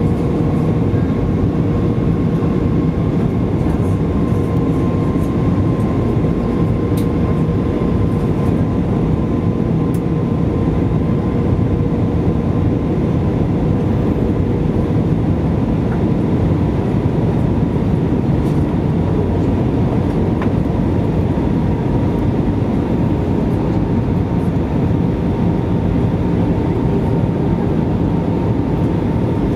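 Airbus A320 cabin noise on descent: a steady, loud low rumble of engines and airflow, with a steady engine hum and a faint higher whine that slowly falls in pitch.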